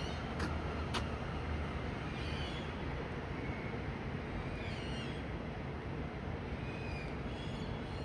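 Steady outdoor city hum with a few short bird chirps over it every couple of seconds. Two sharp clicks come about half a second and a second in.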